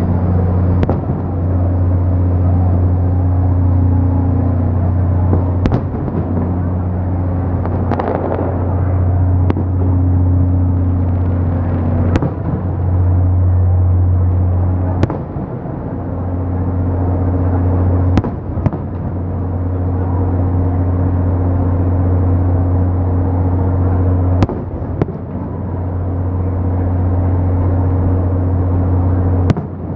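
Fireworks bursting: about ten sharp bangs at irregular intervals, over a loud, steady low hum that cuts out briefly now and then.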